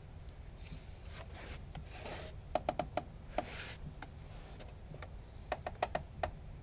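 Scribing tool drawn along a hewn log: several short scraping strokes on the wood, with two quick clusters of light clicks and knocks, over a steady low rumble.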